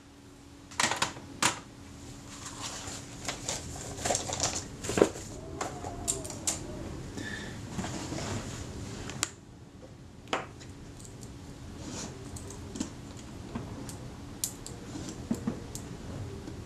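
Small metal hand tools and tweezers clicking and clinking as they are sorted through, picked up and set down, with a busier run of clicks about four to six seconds in. A faint steady hum sits underneath.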